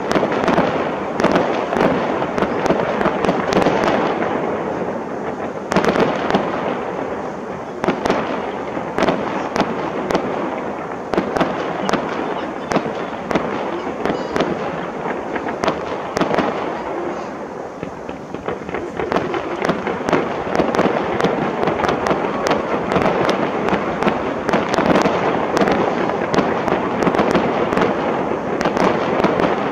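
Fireworks display: a continuous run of sharp bangs from bursting aerial shells over dense crackling, easing off briefly a little past the middle before building again.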